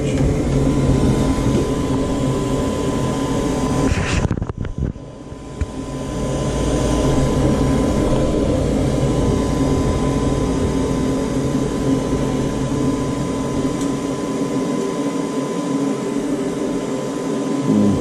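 Goodman gas furnace running with its burners lit: a steady mechanical hum from the draft inducer motor and firing burners. The sound drops away sharply about four seconds in and builds back up over the next two seconds.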